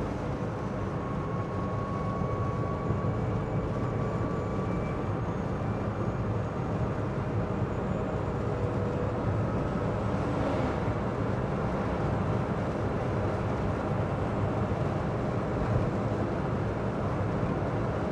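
Steady driving noise inside the cabin of a Citroen Ami small electric car: road and tyre noise with faint whining tones that drift slowly in pitch.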